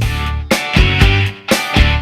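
Background music: an upbeat guitar tune with drums keeping a steady beat.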